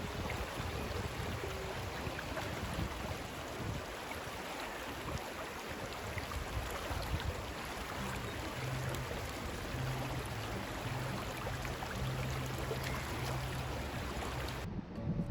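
Steady rushing of a creek's flowing water, running high after a typhoon. It cuts off abruptly just before the end.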